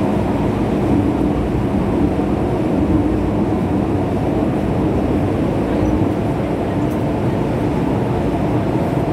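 MTR M-Train electric multiple unit running through a tunnel, heard from inside the carriage: a loud, steady running noise with a low hum, unchanging throughout.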